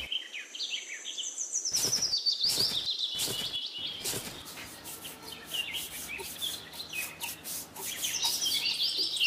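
Small birds chirping in quick, short, repeated calls, with a few sharp clicks about two to four seconds in.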